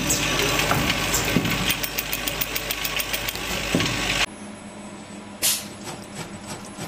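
Automatic roller-bearing assembly machine running as it loads rollers into a steel bearing ring: a steady mechanical clatter over a low hum, with a few sharp knocks. About four seconds in, this cuts off abruptly to a stator coil-winding machine, which is quieter and ticks rapidly and evenly, with one brief louder burst.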